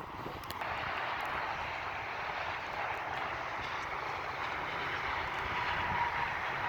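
Traxxas X-Maxx electric RC monster truck driving. The steady whir of its electric motor and drivetrain starts suddenly about half a second in and holds.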